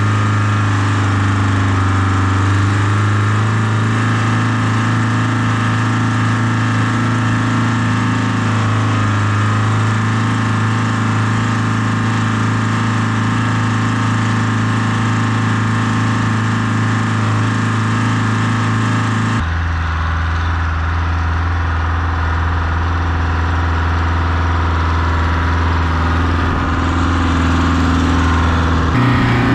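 The Oliver 1950's Detroit Diesel 4-53 two-stroke diesel engine running steadily as the tractor drives over a field. About twenty seconds in, the sound changes abruptly to a lower, steady engine note.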